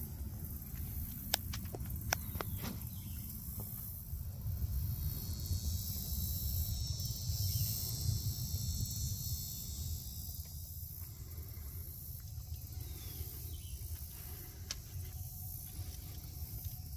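Low rumble of wind on the microphone during a walk, with a high, even insect buzz swelling in for several seconds midway and a few sharp clicks near the start.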